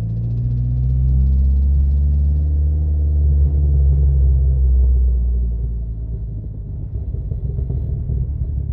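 Dodge Neon SRT-4's turbocharged 2.4-litre four-cylinder running at low revs in first gear, with a ticking from the top end above cylinder 1 that keeps pace with the RPM. The owner suspects worn lifters (lash adjusters) or a bad rocker. The engine note holds steady, then eases off about five seconds in.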